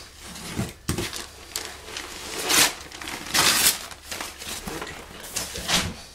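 Fiberglass insulation being cut with a utility knife and pulled from its paper-wrapped roll, crinkling and tearing in irregular rustles, the loudest about two and a half and three and a half seconds in.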